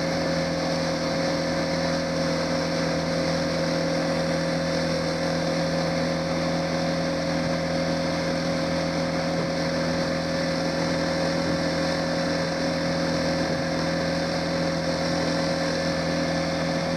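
Johnson 90 hp V4 two-stroke outboard running at a steady cruising speed, its pitch unchanging, over the rush of wind and water from the boat's wake.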